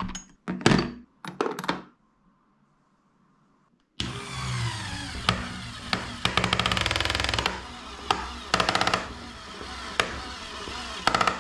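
Knocks and plastic clatter as a storage box loaded with tools is handled, then after a short pause a LEGO Technic electric motor driving a car lift's gear train under a 3.5 kg load. The motor runs steadily with rattling stretches and sharp clicks.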